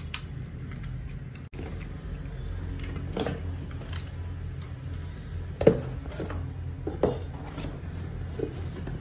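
Box cutter slitting the packing tape on a cardboard shipping carton, with scattered scrapes and knocks of cardboard as the flaps are worked open. The sharpest knock comes a little past halfway. A steady low hum runs underneath.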